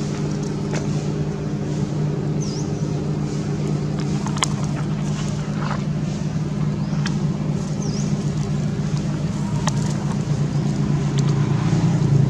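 An engine running steadily with a low, even drone. A few short high chirps and sharp clicks come over it.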